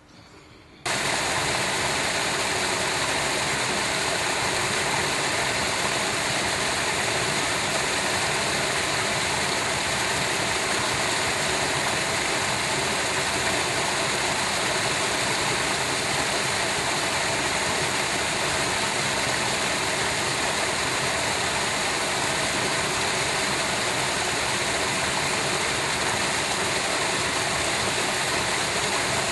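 Water cascading over a small spillway into a brick-lined channel: a loud, steady rushing that starts abruptly about a second in and holds even throughout.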